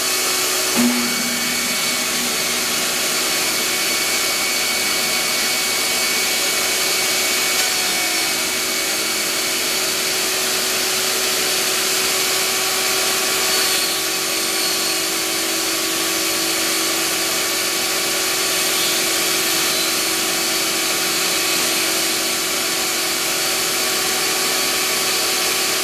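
Small, inexpensive table saw running steadily while a wooden door panel is pushed sideways across the blade against a fence. The blade is taking a shallow cut to form the bevel of a raised panel.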